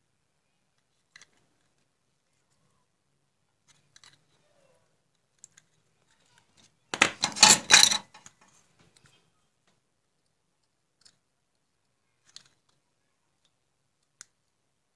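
Plastic housing of a compact fluorescent bulb being pried apart by hand: scattered faint clicks, then about seven seconds in a loud second-long run of cracks and snaps as the base comes away from the ballast housing, followed by a few more light clicks.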